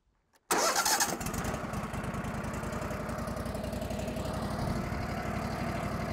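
Wood-Mizer portable band sawmill's engine starting about half a second in, then running steadily with an even, fast pulse.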